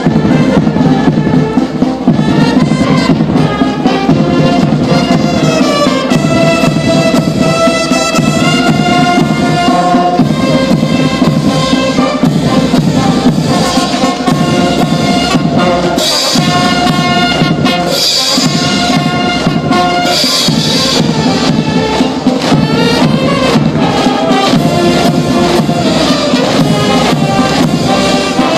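Military brass band playing a march, trumpets and trombones over drums.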